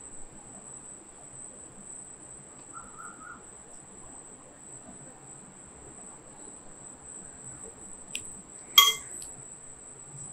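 Quiet room tone with a faint steady high-pitched whine. Near the end a metal spoon clinks once, sharp and ringing, against a glass mixing bowl.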